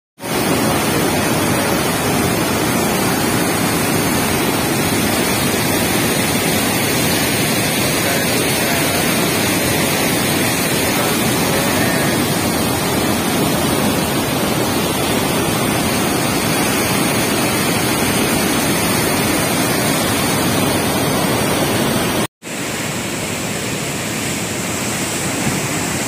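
Floodwater pouring through a dam's open spillway gates: a loud, steady rush of falling water and spray. It cuts out for an instant about 22 seconds in, then carries on a little quieter.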